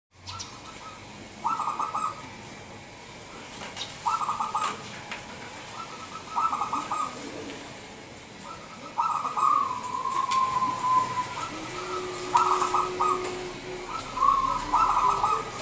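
Local-strain zebra dove (perkutut) cooing: six short, rapidly pulsed phrases about two to three seconds apart, the one near the middle trailing into a longer drawn-out note.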